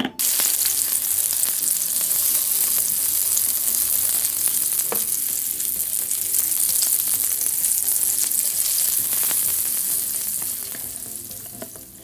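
Sound effect of food frying on a grill, dubbed over a plastic toy egg: a steady sizzle that starts suddenly and fades out near the end.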